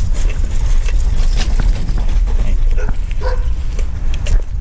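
Steady low rumble of wind and riding noise with scattered clicks, and a dog barking twice about three seconds in.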